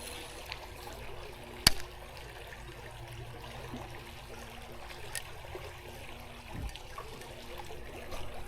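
Creek water trickling and flowing steadily, with a single sharp click about a second and a half in.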